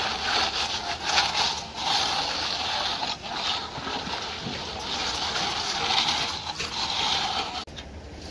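A straightedge scraping back and forth across wet concrete, screeding the fresh pour level, in a run of rough strokes each about a second long. The strokes break off near the end.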